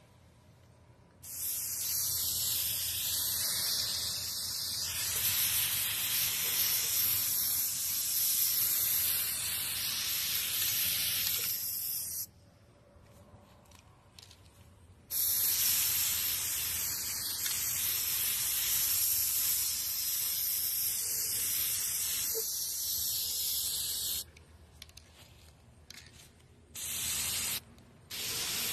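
Aerosol spray paint can spraying in two long bursts of about ten seconds each, then a short burst near the end and another starting just before the end.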